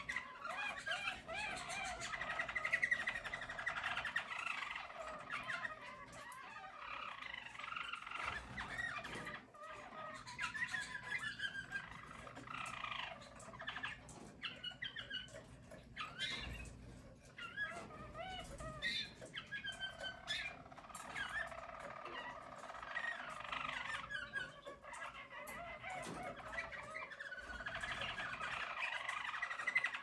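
Harz German Roller canary song: long runs of warbling, rolling trills that go on almost without stopping, broken by a few short pauses.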